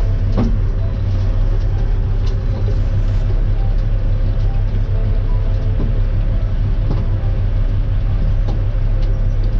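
Western Star dump truck's diesel engine running steadily, a low drone heard from inside the cab, with a few scattered knocks of milled asphalt chunks dropping into the dump body from the milling machine's conveyor while the truck is loaded.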